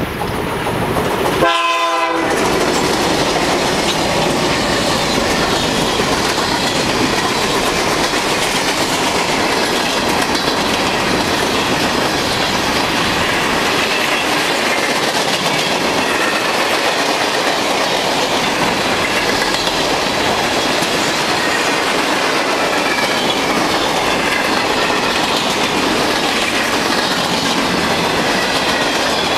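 CN freight train passing close by: one short horn blast about two seconds in, then the loud, steady rumble and clatter of the wheels as tank cars and boxcars roll past.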